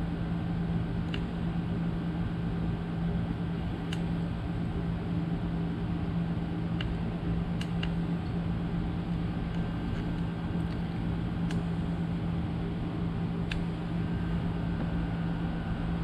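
Steady hum of an electric fan running, with a strong low drone and an even hiss, and a few faint clicks now and then.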